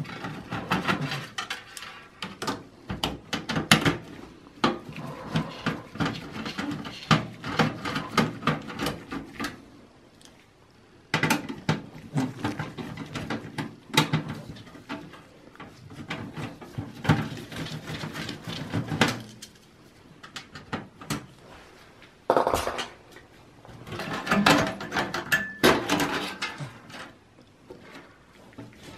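Small metal clicks, clinks and rattles from a screwdriver taking out motherboard screws, and from the screws, tool and board being handled against a steel desktop PC case. The noises come irregularly, with a couple of short lulls.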